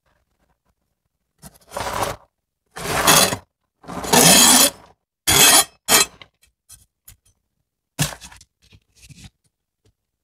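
A chef's knife scraping chopped cabbage off a plastic cutting board into a plastic bowl: a series of short, rough scrapes and knocks, starting about a second and a half in.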